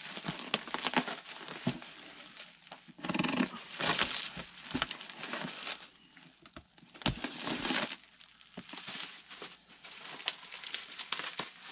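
Bubble wrap and plastic packaging crinkling and rustling in irregular bursts as wrapped model-airplane parts are handled and pulled out of a cardboard box.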